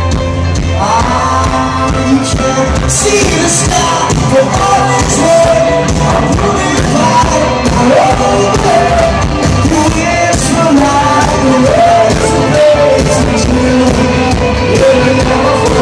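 A rock band playing live, with a lead vocal sung over loud, full band backing and a steady drum beat.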